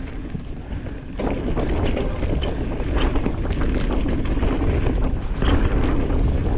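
Wind rushing over the microphone of a camera on a Specialized Stumpjumper Evo mountain bike descending a dirt flow trail, with tyre noise and many short knocks and rattles from the bike over bumps. It gets louder about a second in.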